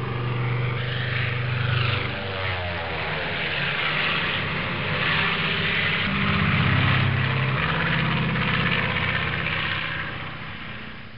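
An aircraft engine drones steadily over a rushing hiss, its pitch shifting and gliding a few times and swelling louder about six seconds in.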